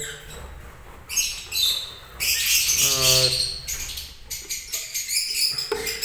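A colony of lovebirds chattering: a busy stream of short, shrill, high chirps that keeps going throughout.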